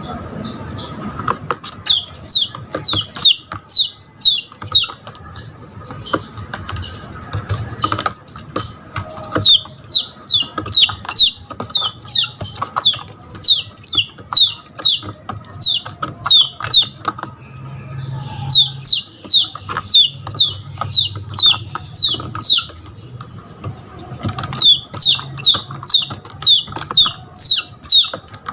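Red junglefowl chick giving loud distress peeps: short, high, falling notes about three a second, in runs with brief pauses. It is the call of a lost chick crying for its mother.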